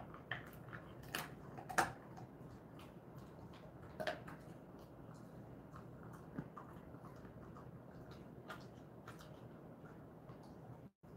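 Jindo mix dog chewing and gnawing a treat: a scatter of faint wet clicks and crunches, with a few sharper ones in the first two seconds and about four seconds in.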